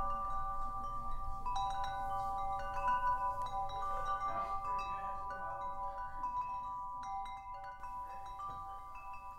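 Chimes ringing: several overlapping sustained tones with light tinkling, new notes sounding now and then, slowly fading toward the end.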